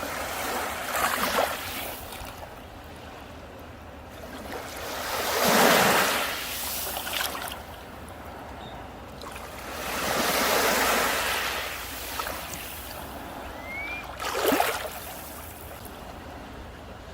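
Sea waves breaking and washing up on a beach, in four swells a few seconds apart, the biggest about six seconds in.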